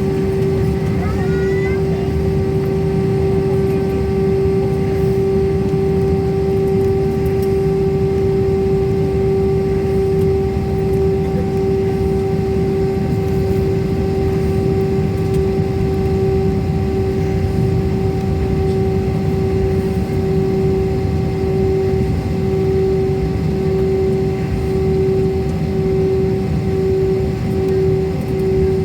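Airliner jet engine and airflow noise heard from inside the passenger cabin: a loud, steady rumble with a strong steady hum.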